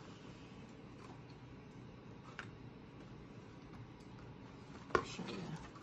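Faint rustling and small ticks of paper strips being handled against a paper bowl, with a louder crackle about five seconds in.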